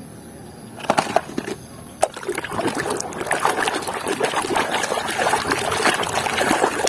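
Water trickling and splashing as toys are washed by hand, starting about two seconds in and running on steadily, after a few light knocks of handling.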